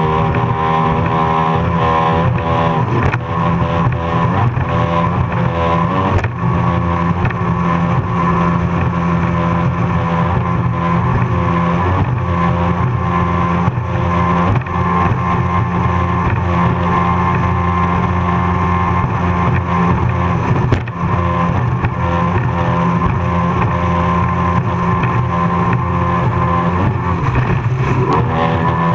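Racing powerboat's engine running flat out, recorded onboard over a dense rush of wind and water; the revs rise and fall several times as the boat runs through rough water. One sharp knock about three-quarters of the way through.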